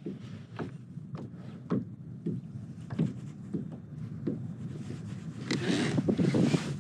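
Small waves lapping against a plastic kayak hull, a light slap about every half second, with wind on the microphone growing louder near the end.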